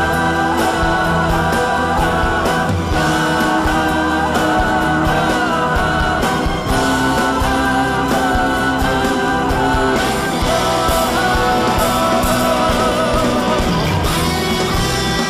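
Background pop song with guitar and a steady beat, sung vocals fading in and out.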